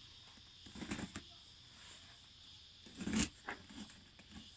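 Steady high chirring of crickets in the background, with two short bursts of rustling and scraping handling noise, about a second in and again about three seconds in.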